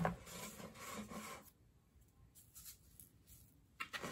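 A sharp knock at the start, then rubbing and rustling as a curly lace wig is handled and pulled over a canvas block head. The rubbing fades after about a second and a half and picks up again near the end.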